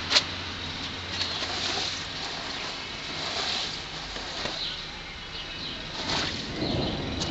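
Footsteps crunching on a path covered in a layer of small hailstones, a step about every second, with a sharp click just after the start.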